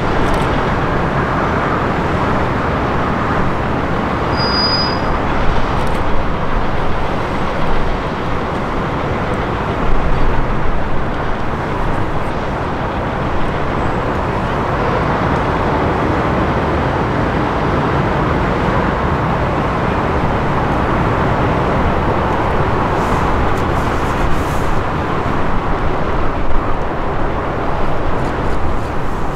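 Airbus A380's jet engines: a loud, steady rushing rumble with small swells in level.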